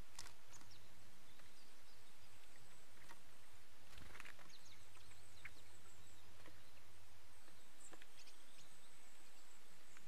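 Outdoor ambience with scattered short, sharp ticks from great spotted woodpeckers on the stick nest, the loudest cluster about four seconds in. A faint steady high whine and a low hum run underneath.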